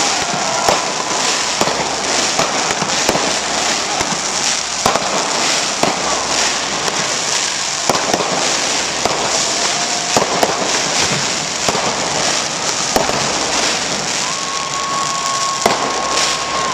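Celebratory fireworks going off: a dense steady crackle with sharp pops and bangs scattered throughout.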